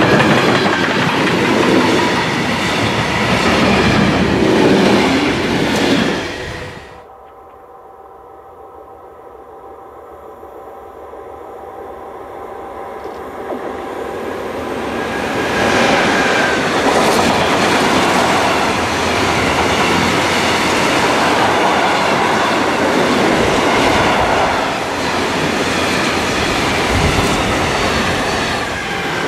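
Freight trains passing close on an electrified main line. First a container and tank-container train rolls by with loud wheel and rail clatter, which cuts off suddenly about 7 seconds in. A red class 185 electric locomotive hauling tank wagons then approaches with a faint steady hum, growing louder until it passes and its wagons clatter by for the rest of the time.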